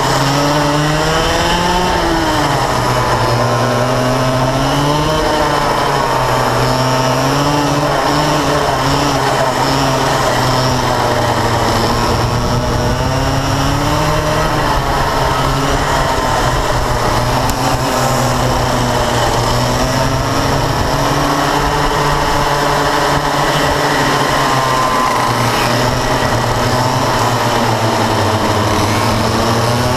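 Yamaha KT100 two-stroke kart engine heard onboard at racing speed, its pitch rising and falling again and again as the kart lifts off into corners and accelerates out. Other karts' engines run close by.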